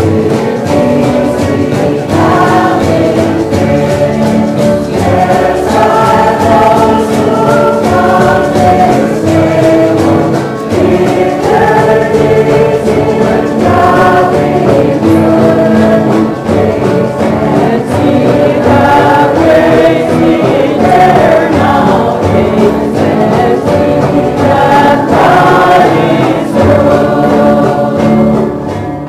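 Background music: a choir singing a Christian hymn, several voices holding notes together at a steady level, dropping away at the very end.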